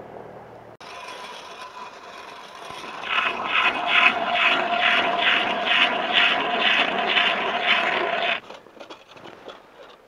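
Hand-cranked ice auger drilling into lake ice, its blades scraping in an even rhythm of about three turns a second. It grows louder about three seconds in and stops abruptly about eight seconds in, followed by a few small ticks.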